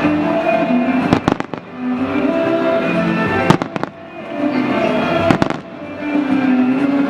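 Fireworks shells bursting in sharp bangs about every two seconds, each with a short echo, over loud show music.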